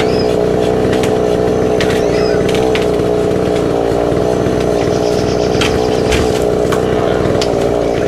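Old moped's small engine running steadily at a constant speed, an even, loud drone, standing in for a chainsaw over hand-sawing.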